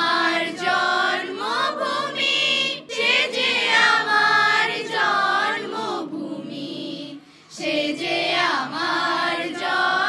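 A mixed group of teenage boys and girls singing a Bengali patriotic song together, unaccompanied. There is a short break between phrases about seven seconds in.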